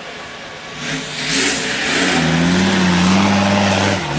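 Off-road 4x4's engine revving hard under full throttle as it climbs a steep dirt bank. The revs rise about a second in and hold high, then drop briefly just before the end and pick up again.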